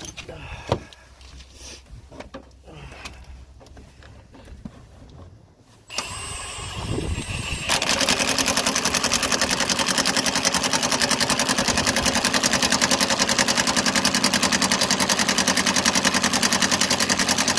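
Impact gun spinning up about six seconds in, then hammering steadily at a fast rate for about ten seconds as it drives in the 17 mm strut-to-knuckle bolts, stopping abruptly. Before it, a few light clicks of tools and parts being handled.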